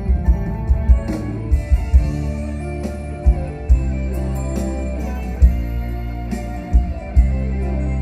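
Live band music with guitars over a bass line, with deep drum beats thumping through it.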